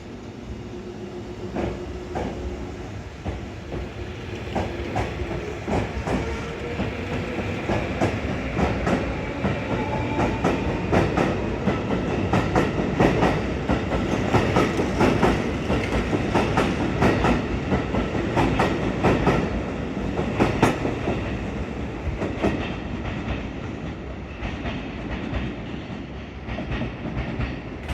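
Hankyu 1000 series electric commuter train pulling away and accelerating: its traction motor whine rises in pitch while the wheels click over rail joints faster and faster. The sound is loudest as the cars pass, then fades near the end.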